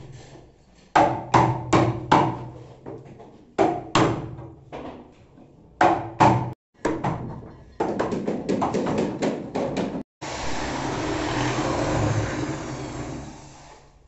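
A heavy hammer strikes a steel chisel again and again, cutting a lock mortise into the wooden edge of a door. The blows come singly at first, then in a quick run about eight seconds in. After that an electric drill runs steadily for about three seconds before fading.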